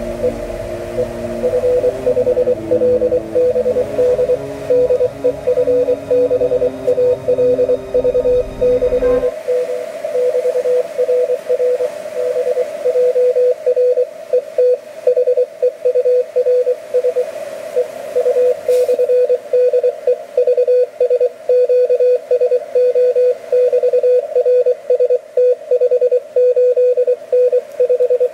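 Morse code (CW) signal received on an Elecraft K3 transceiver: a single steady note keyed on and off into dots and dashes over a band of receiver hiss. Background music underneath stops abruptly about nine seconds in.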